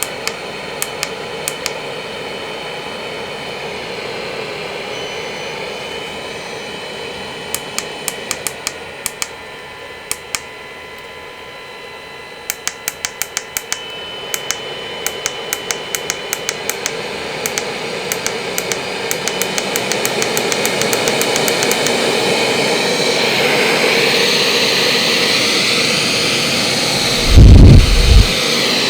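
Hot air gun blowing with a steady rushing hiss and a faint whine, broken by runs of rapid sharp clicks. The airflow grows gradually louder through the middle, and a brief loud low thump comes near the end.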